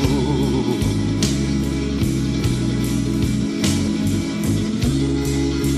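Slow electric blues from a guitar, bass and drums trio: a lead electric guitar line with wavering, vibrato notes over a walking bass and steady drum beats.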